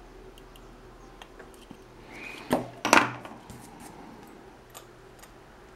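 Light clicks and taps from a soldering iron and a small circuit board being handled on a work surface, with two sharper knocks about two and a half and three seconds in.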